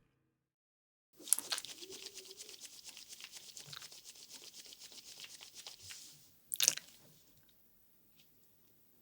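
Close-miked eating: a rapid run of small crunching crackles for about five seconds, then one louder crunch near the end.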